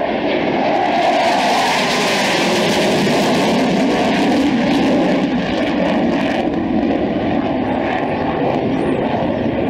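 Roar of a Panavia Tornado GR1's twin RB199 turbofan jet engines as it flies past low and slow, the pitch dropping as it goes by. The sound turns duller after about six seconds as it climbs away.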